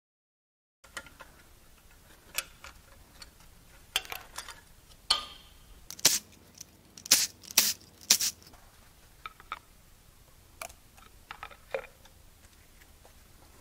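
Scattered clicks and metal knocks from bolts and parts on the fuel pump of a Mazda 2.3L MZR engine. A cluster of short, loud bursts from a cordless power tool comes about six to eight seconds in, as the pump's bolts are loosened.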